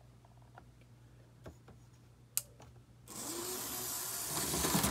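Old Tri-ang OO-gauge locomotive's electric motor starting up suddenly about three seconds in and running steadily, after a couple of light clicks.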